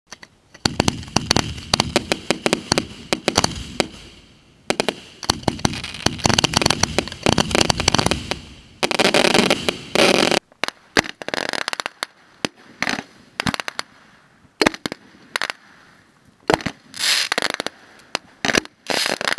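Fireworks going off: a dense volley of bangs for about ten seconds, ending in a longer crackling burst, then separate bangs spaced out.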